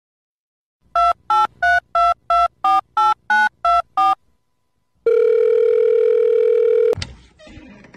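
Touch-tone telephone keypad tones: ten quick dialled digits, each beep a different pair of notes, then a steady phone tone for about two seconds that cuts off suddenly with a click.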